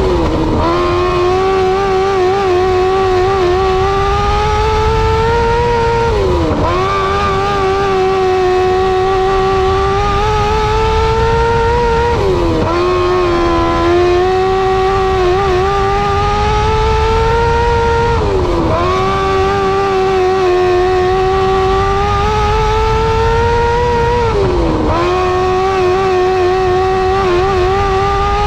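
Restricted 600 micro sprint's 600cc motorcycle engine held at high revs, heard from inside the car. The pitch climbs slowly down each straight and dips sharply about every six seconds as the driver lifts for each turn of the oval, five times in all.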